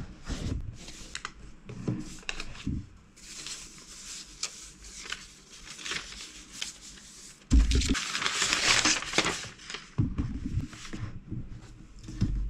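Hands handling a MacBook Pro's cardboard box and packaging: rustling and scraping of paper and card with light knocks, and a louder stretch of rustling that starts with a knock about halfway through.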